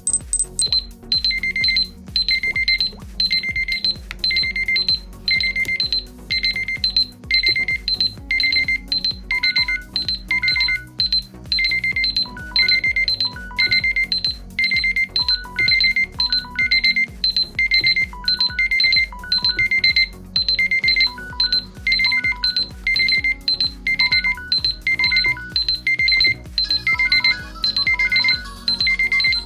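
Mobile phone alarm or timer tones sounding together: a fast, steady electronic beeping that alternates between two high pitches, with a lower melodic ringtone phrase of short notes coming in about nine seconds in.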